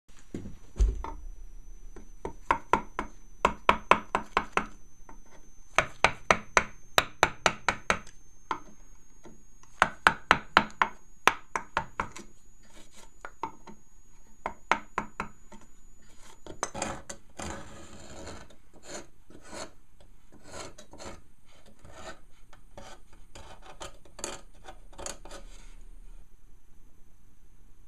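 Hand-held woodcarving gouge paring short cuts into a carved wood relief, in runs of quick scraping strokes about three a second. About halfway through, the strokes turn softer and more scattered as finer detail work.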